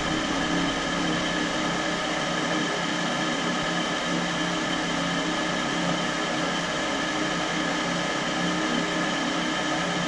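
Goodman furnace's draft inducer motor running, a steady hum with several fixed tones, during the ignition sequence with the igniter on; no burner lights because the gas valve fails to open, the fault the technician diagnoses as a bad gas valve.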